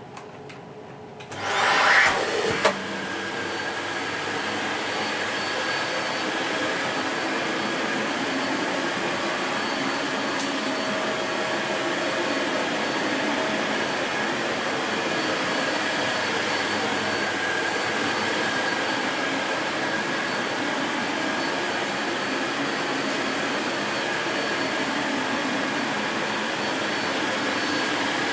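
Dyson Light Ball bagless upright vacuum cleaner switched on about a second in, its motor spinning up with a rising whine, then running steadily at maximum suction with a steady high whine over the rush of air.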